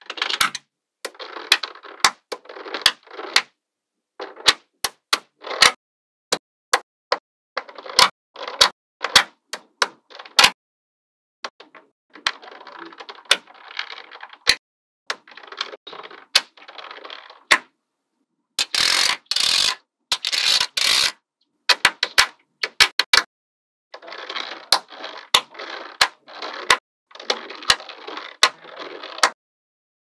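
Small magnetic balls clicking as they snap together, with single sharp clicks between stretches of dense rattling as they are handled. A louder rattling stretch comes about two-thirds of the way through.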